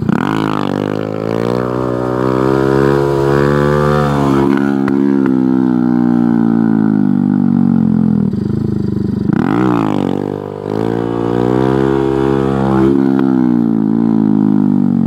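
Honda Grom's single-cylinder 125cc engine revved up sharply for a wheelie launch, twice: once at the start and again about nine and a half seconds in, each time winding slowly down in pitch afterwards.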